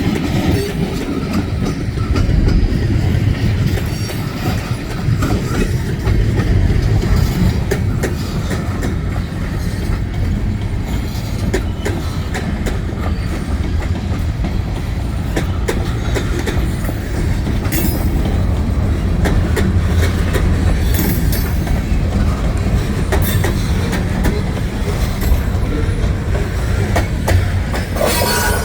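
Railroad cars rolling past close by: a steady, loud low rumble with wheels clicking over rail joints and a few brief high-pitched squeaks.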